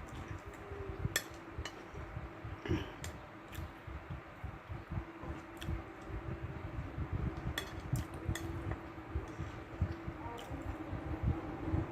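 Metal fork and knife clinking and scraping against a plate in a dozen or so scattered clicks, over a steady low hum.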